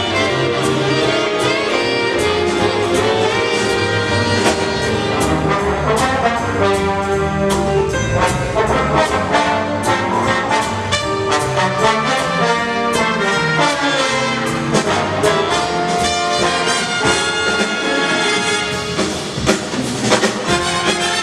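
Big band playing jazz: trumpets and trombones in full chords over a steady drum-kit groove with regular cymbal strokes.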